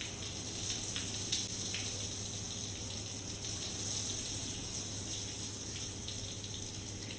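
Water running steadily from a tap, with a few light clicks.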